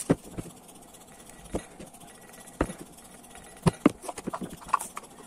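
A knife cutting a bar of Vim dishwashing soap into pieces on a cutting board: a handful of sharp, irregular knocks and taps as the blade goes through the bar and strikes the board and the pieces are handled.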